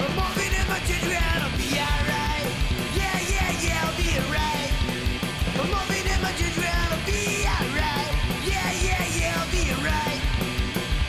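Punk rock song: distorted electric guitars, bass and drums under shouted lead vocals.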